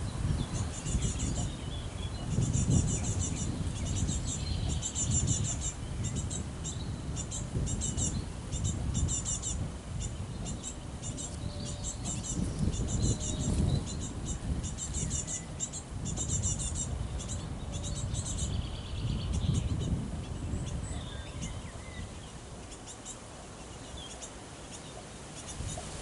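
High-pitched chirping of small birds and insects, coming in rapid repeated bursts that thin out after about twenty seconds, over a low, gusty rumble of wind on the microphone.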